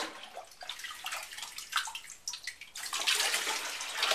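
Water splashing and sloshing as a sump pit is bailed out by hand with a container, its electric sump pump dead from a power outage. The splashes come in short irregular bursts, with a longer, louder rush of water in the last second or so.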